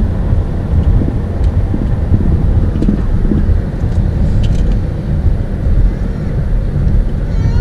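Steady low road and engine rumble inside a car's cabin while it drives along a highway.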